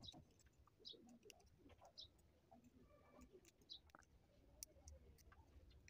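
Near silence, with faint scattered clicks and scuffs of hands handling the plastic housing of a Bluetooth neckband headphone.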